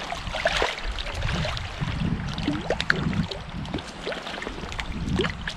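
Shallow stream water splashing and sloshing as a landing net is swept through it and lifted out, with small plinks of dripping water and wind gusting on the microphone.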